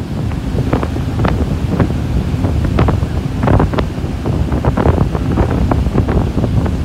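Loud wind buffeting the microphone, a constant low rumble broken by frequent short gusty crackles, over waves breaking and washing in the shallow surf.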